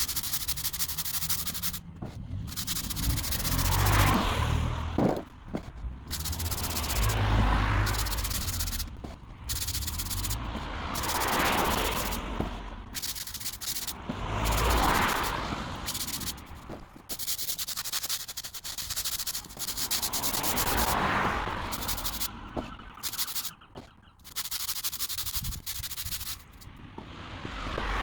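High-pressure water jet hissing onto paving slabs. The hiss swells and fades every few seconds and cuts out briefly now and then.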